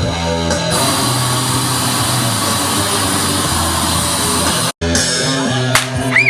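Rock music with electric guitar and bass, holding long low notes; it cuts out for an instant near the end and comes back with sharp hits.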